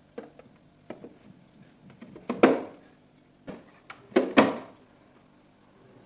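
Clear plastic refrigerator door shelves being fitted into the door liner: a string of small plastic clicks and knocks, with two louder clunks about two seconds apart.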